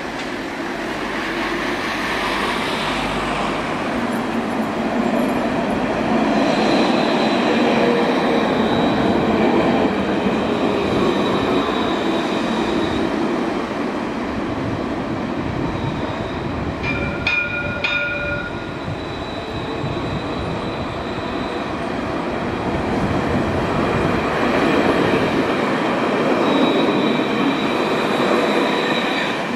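Alstom Citadis electric trams running on street track: a steady rumble of wheels on rail with a thin high whine. The sound swells twice as trams pass, the second close by near the end. A brief ringing tone sounds just past halfway.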